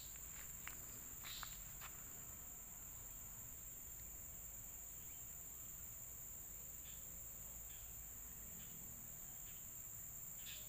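Steady high-pitched drone of an insect chorus, with a few faint rustles in the first couple of seconds.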